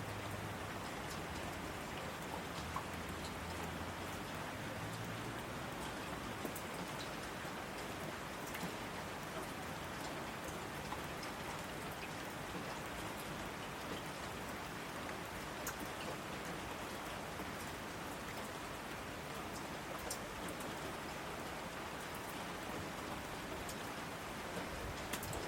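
Steady rain falling, with scattered individual drop ticks. A low rumble sits underneath during the first few seconds.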